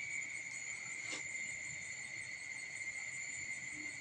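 A steady, unbroken high-pitched trill or whine, with a faint click about a second in.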